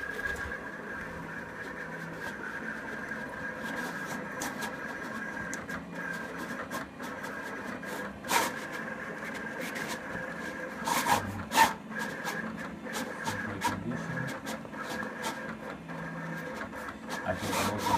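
Roland GX-24 servo vinyl cutter cutting vinyl: a steady motor whine as the carriage and media move, with quick clicks throughout and a few sharper knocks a little past the middle.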